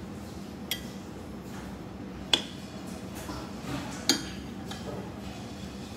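A metal utensil clinking against a cooking pot three times, each strike ringing briefly, over a steady low hum.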